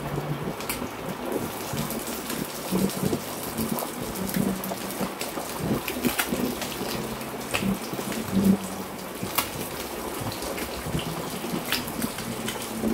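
Sole fish frying in hot coconut oil: a steady sizzle with scattered pops and crackles.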